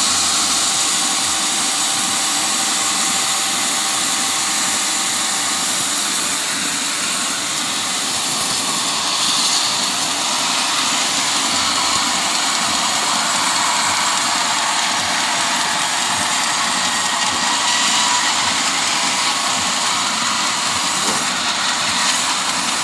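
Portable sawmill running steadily, its saw cutting teak into lumber: a loud, continuous machine noise.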